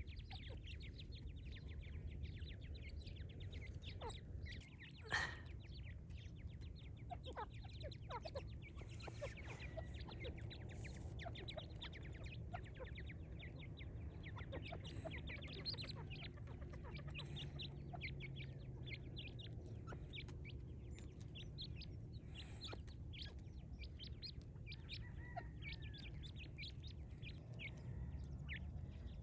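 A brood of partridge chicks peeping: a constant stream of short, high peeps, with one louder call about five seconds in.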